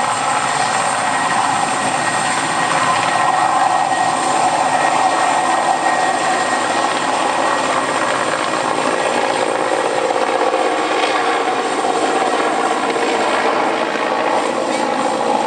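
Mi-8 helicopter's twin turboshaft engines and main rotor running, a loud, steady mix of engine whine and rotor noise with a faint high tone.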